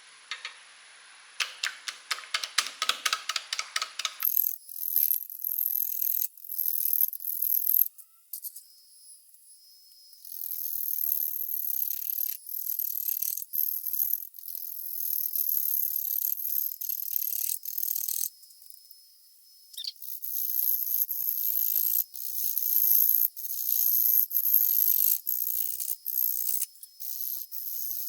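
Bowl gouge cutting a wet walnut log spinning on a lathe at 250 RPM. For the first few seconds it gives a rapid ticking, about four or five a second, as the tool meets the high spots of the still out-of-round blank on each turn. After that comes a high-pitched hiss of shavings in spells, with short pauses between cuts.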